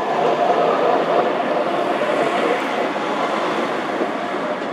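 Wooden carriages of the La Rhune electric rack railway rolling past along the platform, making a steady rumble of wheels on the rails that eases off slightly toward the end.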